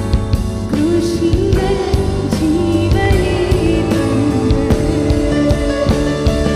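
A woman singing a Malayalam Christian song into a microphone, backed by a band with bass and a steady drum beat.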